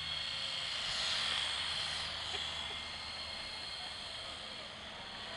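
Small remote-controlled helicopter running steadily in flight, a high electric-motor whine over the whir of its rotors. It swells slightly about a second in, then eases.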